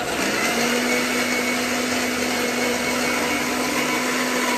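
Countertop electric blender running steadily, puréeing basil, garlic, walnuts and olive oil into a pesto dressing. Its motor reaches full speed in the first moment, then holds an even hum under a loud whirring.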